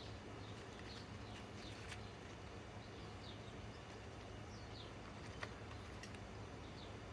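Faint small-bird chirps, short falling notes scattered through, over a steady low background hum, with a light click about five seconds in.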